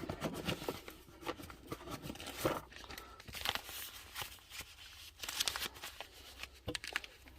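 Packaging rustling and crinkling as accessories are handled and lifted out of a box, with scattered small clicks and knocks.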